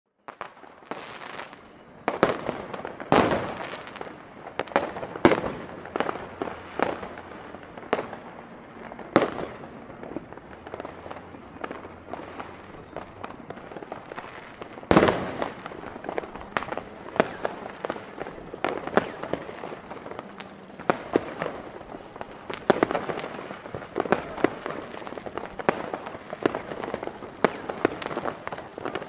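Consumer fireworks going off at New Year's midnight: many sharp bangs from firecrackers and rockets at irregular intervals, the loudest about halfway through, over a steady bed of crackling and distant explosions.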